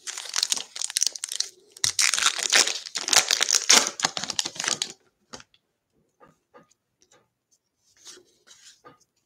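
Trading-card foil pack being torn open and the crinkly wrapper pulled off the stack of cards, with dense crackling for about the first five seconds. After that, only a few faint light ticks as the cards are handled.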